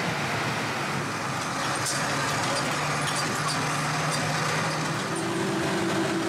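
Old school bus driving on a rough dirt road: engine and road noise make a steady drone with a low engine hum, and a second, higher steady hum joins in about five seconds in.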